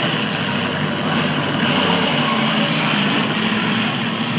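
Demolition derby cars' engines running together: a steady engine rumble with no clear crashes.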